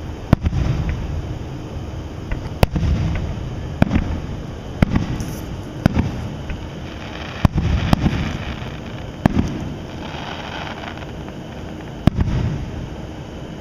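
Aerial fireworks shells bursting overhead: about eight sharp bangs a second or two apart, each trailed by a low rolling rumble. There is a patch of crackle about ten seconds in.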